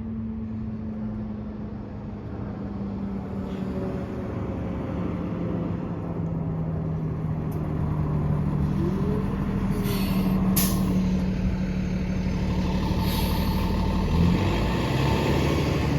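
Fairfax Connector transit bus's diesel engine running steadily, growing a little louder, with short hisses of air-brake air about ten seconds in and again about three seconds later.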